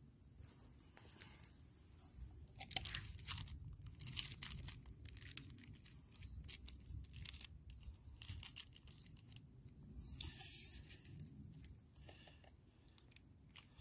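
A plastic snack wrapper being torn open and crinkled, with irregular crackling rustles.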